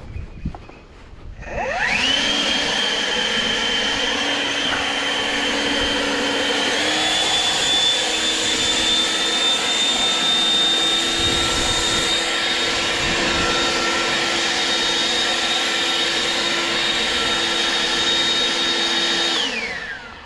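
Leaf blower spinning up with a rising whine, running steadily, stepping up to a higher speed about seven seconds in, then winding down near the end.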